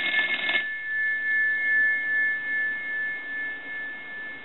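Northern Electric Galion rotary telephone's bell ringing: the clapper's fast rattle against the gongs cuts off about half a second in, and two steady high tones carry on through the gap between rings. The ringer is working again after its bell circuit was repaired.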